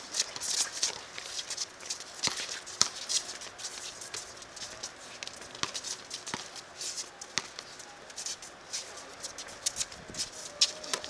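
Sounds of a basketball game: players' footsteps and shuffling shoes on the court, with irregular sharp knocks of the ball bouncing.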